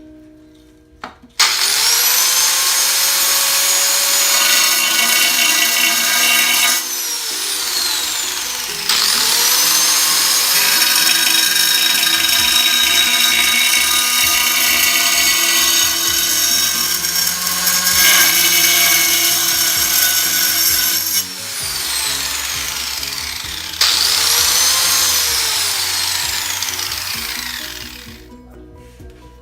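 Angle grinder cutting a tile, switched on three times: each time its high whine climbs as the disc spins up and holds steady, then falls away as the motor winds down.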